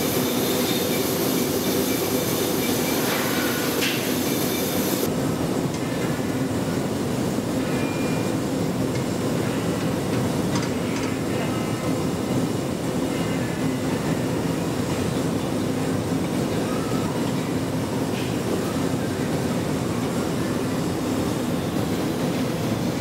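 Steady roar of a crystal glassworks floor, the furnace and workshop machinery running, with a high hiss that cuts off about five seconds in.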